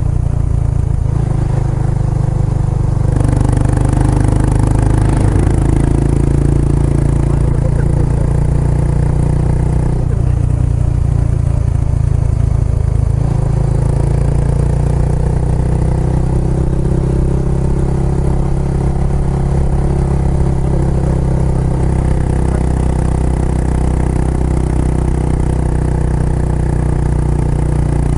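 Kawasaki Estrella's single-cylinder engine running through a Yamato aftermarket muffler while riding, with a steady exhaust note that shifts in pitch a few times as the throttle and gears change.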